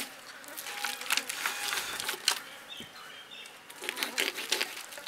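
A kitchen knife sawing deep scoring cuts through the scaled skin of a whole Asian sea bass (barramundi), the hard scales crackling and clicking under the blade. The clicks thin out a little past halfway, then come thick and fast again near the end.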